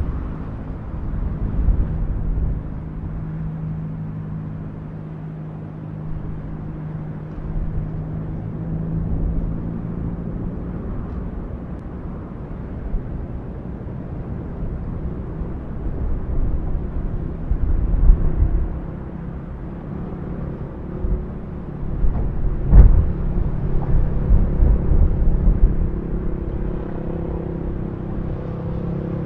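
Cumbre Vieja volcano on La Palma erupting: a continuous deep rumble with steady droning tones, swelling now and then, and one sharp crack about three-quarters of the way in.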